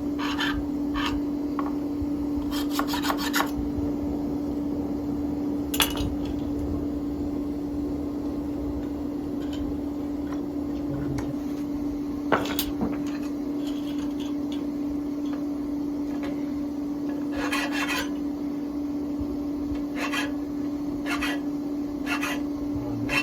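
Metal being filed by hand in short clusters of rasping strokes, over a steady hum, with a couple of sharp clicks.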